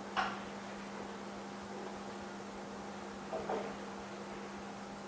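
A steady electrical hum, with brief handling noises of fingers pressing and sliding on the glass of a phone screen panel: one just after the start and a pair about three and a half seconds in.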